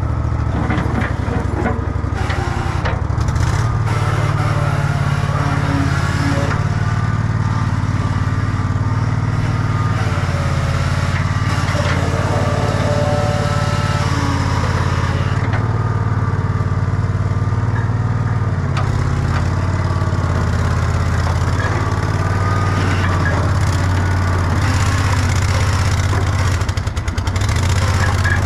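Old Bobcat 444 skid steer's Briggs & Stratton Vanguard 23 hp V-twin gas engine running steadily, with a brief dip near the end.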